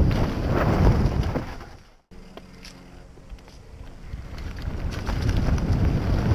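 Wind buffeting the microphone of a helmet-mounted action camera, with the mountain bike's tyres rumbling over a dirt trail during a fast downhill run. The sound cuts out abruptly about two seconds in, comes back quieter, then builds steadily as speed rises.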